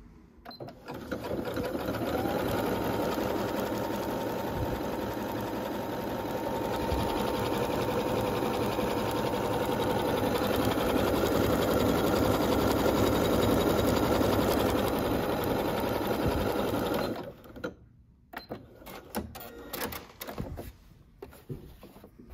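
Janome Atelier 3 computerised sewing machine, started with its start/stop button, running steadily as it sews a decorative step-pattern stitch through fabric. It gets somewhat louder partway through, then stops about seventeen seconds in. After that come a few light clicks and rustles as the fabric is handled.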